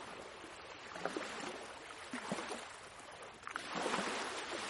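Ocean waves washing in, a steady wash with small splashes, with a wave surging louder about three and a half seconds in.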